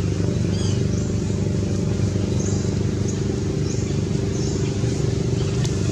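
Motor engine idling steadily at a low, even pitch, with several short high chirps over it.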